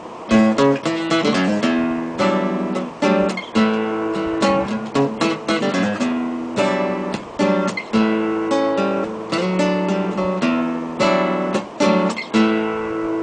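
Acoustic guitar playing a song's instrumental intro: plucked notes and strummed chords, starting suddenly with a loud strum.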